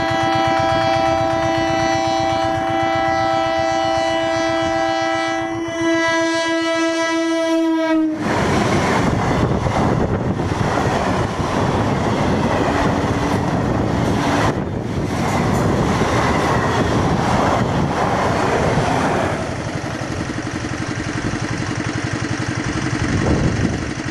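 An electric multiple-unit train sounds its air horn in one long continuous blast of about eight seconds, the pitch dipping as it stops. The coaches then rush past with a loud rumble and a rhythmic clickety-clack of wheels on the rails.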